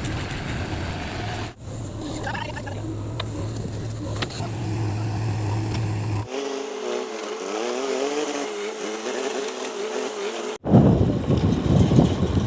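Diesel engine of heavy machinery running, in short clips that cut abruptly into one another. In the middle stretch a wavering higher-pitched drone takes over with no low rumble, and near the end a loud rough engine rumble returns.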